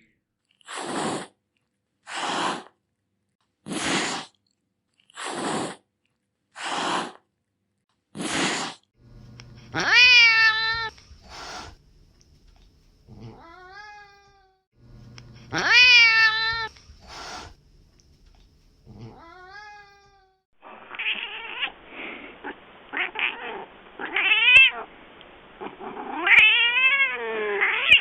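Domestic cat hissing six times, about every second and a half, followed by two loud drawn-out meows that rise and fall in pitch. In the last third a duller-sounding recording of cats yowling and meowing takes over.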